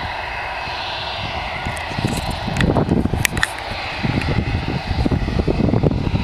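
Jet airliner's twin engines running with a steady hiss, joined from about two seconds in by gusty wind rumble on the microphone and a few sharp clicks.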